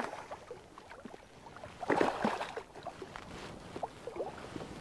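Irregular small knocks and light water noise of handling in a canoe while landing a fish, with one louder burst about two seconds in.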